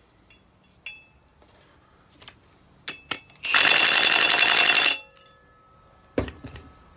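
Impact wrench run in a burst of about a second and a half, rattling rapidly as it tightens a 3/8 bolt on a closing-wheel mounting plate. Light clinks of metal parts come before it and a single thump follows near the end.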